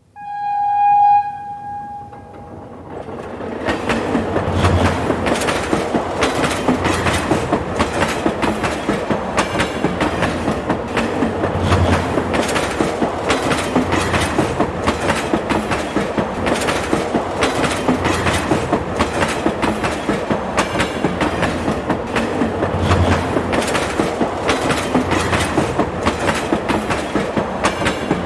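A train horn gives one short blast. From about three seconds in, a moving train runs steadily, its wheels clattering over the rails in a fast, regular rhythm.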